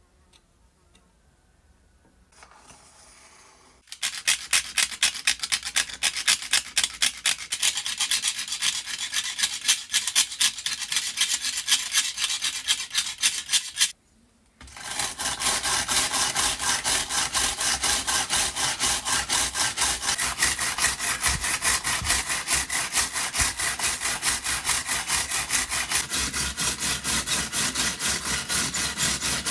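Rapid back-and-forth abrasive rubbing strokes, several a second, as a part of the lamp is scrubbed or sanded by hand. The strokes start a few seconds in, stop for about half a second near the middle, then resume steadier and denser.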